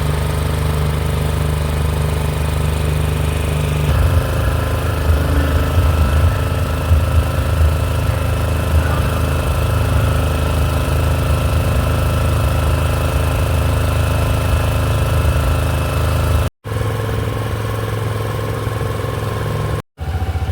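Small river boat's engine running steadily, with a low, even drone. The sound changes abruptly about four seconds in and cuts out briefly twice near the end.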